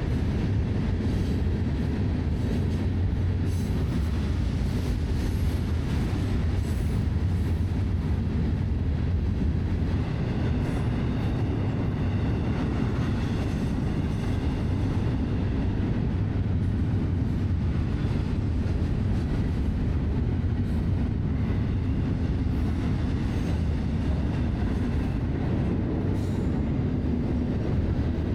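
Florida East Coast Railway freight train rolling steadily past, a continuous low rumble of wheels and cars on the rails, with a faint wheel squeal in the middle.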